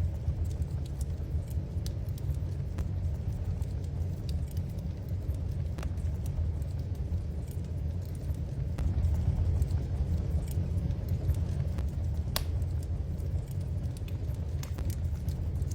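Wood fire burning in a fireplace, crackling with scattered small pops over a steady low rumble, with one sharper pop near the end.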